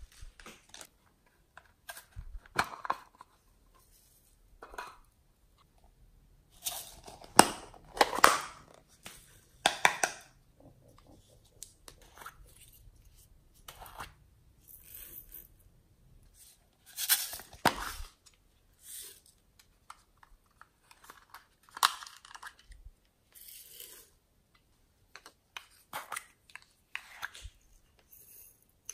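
Small plastic pots of glitter and sequins being handled and shaken out over slime: short, irregular bursts of crinkly rustling and clicks with quiet gaps between, a few louder bursts standing out.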